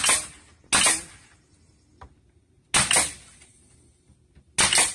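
Pneumatic nail gun firing four times, each shot a sharp crack with a short tail, driving nails through PVC brick moulding. The first two shots come close together, the next two about two seconds apart.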